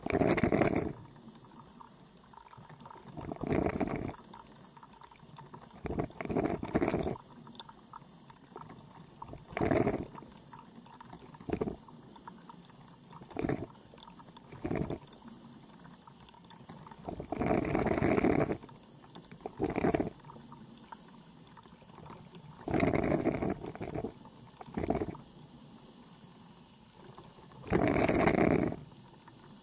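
Old coffee machine gurgling and sputtering as it brews, in about a dozen short irregular bursts, each a fraction of a second to about a second and a half long, with quieter gaps between them.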